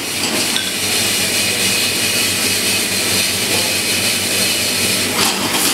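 Steady rushing noise from a commercial kitchen's extractor hood fan and gas range burners turned up high, with a low hum underneath.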